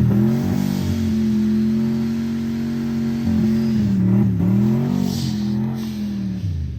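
Fox-body car's engine running at steady revs while driving, with short dips and recoveries in pitch a few seconds in and a drop in revs near the end, fading out.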